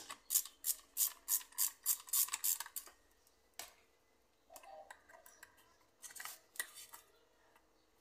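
Hand ratchet with a quarter-inch socket clicking in quick, even strokes, about three a second, as it backs out a blender's motor mounting screw. The clicking stops about three seconds in, followed by a single knock and light handling clicks.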